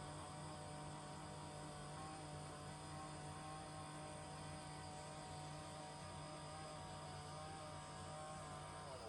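Electric standing desk's lift motors running, a steady hum with several held tones.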